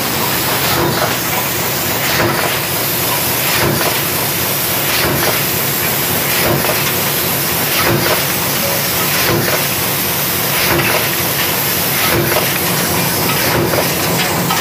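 Stamping press running, with a light knock about every one and a half seconds over a steady loud hiss.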